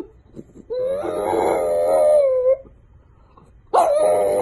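French bulldog howling: one long howl with a slightly wavering pitch, then a second howl starting near the end.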